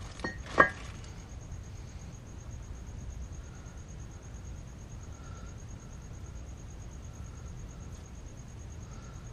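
Crickets chirping steadily over a low background rumble. Two sharp clicks come in the first second, the second one louder.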